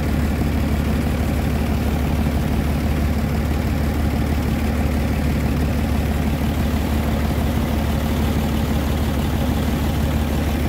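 An engine running steadily at a constant speed, a low, even drone that does not change.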